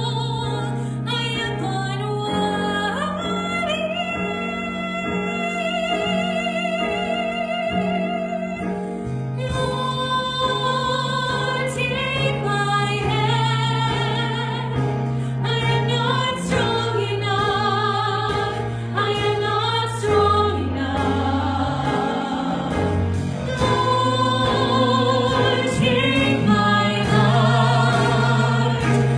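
Singing with vibrato on long held notes over a sustained musical accompaniment with slowly changing bass notes.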